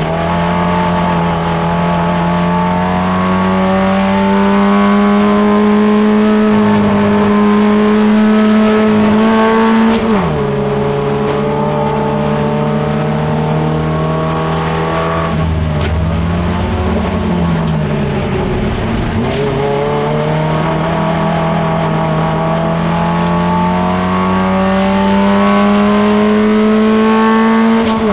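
Holden Gemini race car's four-cylinder engine heard from inside the cabin, running hard with the revs climbing steadily through a gear and an upshift about a third of the way in. Midway the revs fall and rise again around a corner, then climb steadily to another upshift at the very end.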